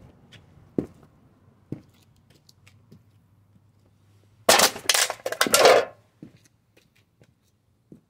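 A thin tin toy camper crushed under a leather-soled Justin cowboy boot: a loud crunching and crackling of crumpling sheet metal about four and a half seconds in, lasting about a second and a half. Before it come a few light knocks.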